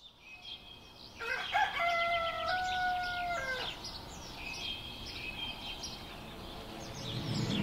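A rooster crowing once: one long call starting about a second in and dropping away at the end, over small birds chirping.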